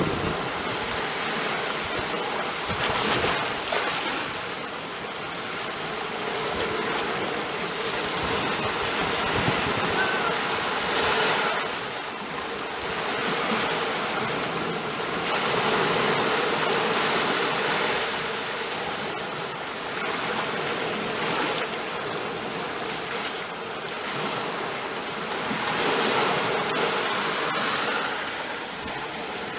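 Sea waves washing in, a steady rushing of water that swells and eases every few seconds.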